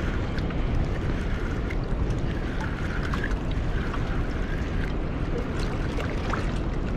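Steady rushing of fast river tailwater below a dam, with a low rumble of wind on the microphone.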